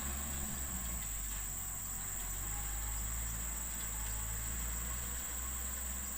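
A machine's engine running at a steady low pitch, its hum shifting slightly a couple of times. Insects trill at a constant high pitch behind it.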